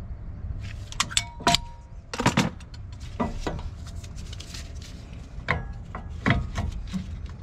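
Metal clinks and knocks from a brake caliper, a caliper piston compressor tool and other metal parts being handled, a dozen or so sharp strikes, a few with a brief metallic ring, over a steady low hum.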